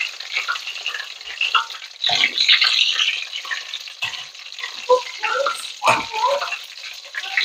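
Breaded chicken pieces frying in hot oil in a stainless steel pot, the oil bubbling and sizzling as the pieces are lifted out with metal tongs. There is a sharp knock about six seconds in.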